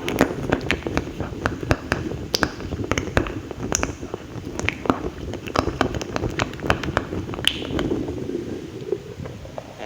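Close-miked ASMR mouth sounds: wet clicks and smacks of the lips and tongue, coming quickly and irregularly, several a second.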